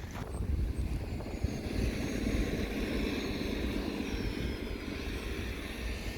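A steady, low engine rumble that swells slightly about half a second in.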